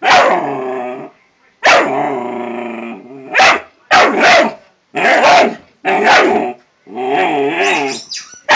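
A three-month-old Doberman puppy barking in a string of about seven loud outbursts, two of them drawn out into longer, wavering growly barks. It is alarm-barking at a tumble dryer ball.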